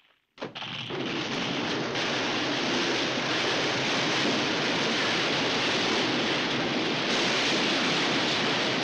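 Audience applauding: a few separate claps about half a second in, then dense, steady applause.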